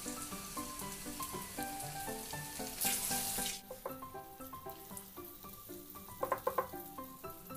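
Batter-coated sweet potato bondas deep-frying in hot oil in a kadai, a steady sizzle with a louder burst of sizzling about three seconds in that cuts off sharply. A quick run of sharp taps a little after six seconds. Background music with melodic notes throughout.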